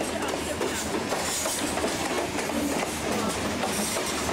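Union Pacific freight train's hopper cars rolling past close by: steel wheels on the rails make a steady noise laced with faint clicks.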